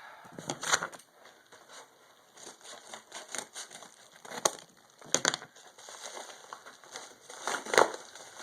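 A package being opened by hand: scattered crackles, scrapes and rustles of packaging being torn and handled, with the loudest crunch near the end.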